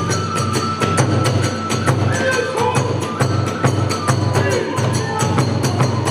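Hiroshima kagura music: drums and hand cymbals keeping a fast, even beat under a wavering flute melody.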